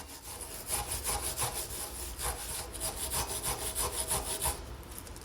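A brush scrubbed rapidly back and forth over a brake caliper carrier, cleaning off dirt and corrosion: quick, even scraping strokes, several a second, which stop a little before the end.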